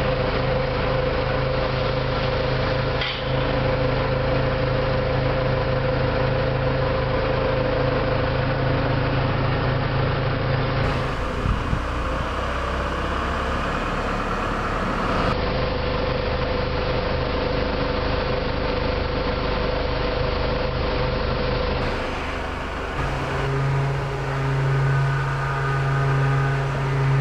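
Extended-boom forklift's engine running steadily, growing louder over the last few seconds. A single knock sounds about three seconds in.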